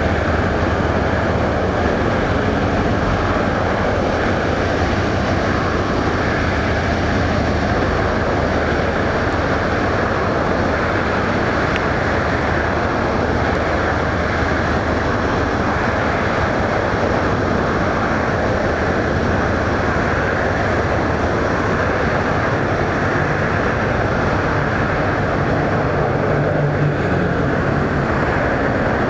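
A steady rumble of engines with a low hum. A second, slightly higher hum comes in near the end.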